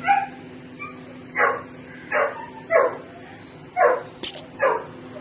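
A young dog barking in short, sharp, irregularly spaced barks, about seven of them, one higher and shriller just after four seconds, while play-fighting. A steady low hum runs underneath.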